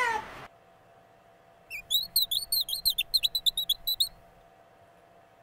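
The tail of a cat's meow, then about two seconds of quick, high, repeated chirps from a small bird.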